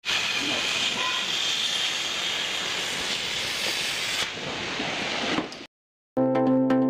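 A steady, hissing rush of noise for about five and a half seconds that cuts off suddenly. After half a second of silence, electronic background music begins.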